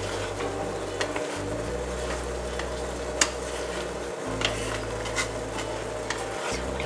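A spoon stirring fried maida snacks through hot sugar syrup in a pan, with scattered clicks and knocks against the pan, the sharpest about three seconds in, over a steady low hum.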